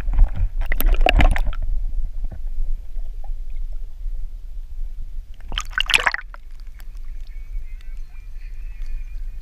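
Water heard through an action camera's housing underwater: a muffled low rumble with a cluster of splashes and clicks during the first second and a half, then a louder splash just before six seconds as the camera breaks the surface. After that comes a faint steady high hum.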